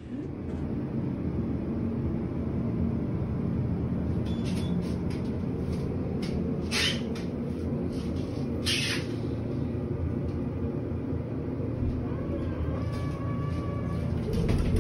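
Elevator cab in motion: a steady low rumble, with two short hisses around the middle.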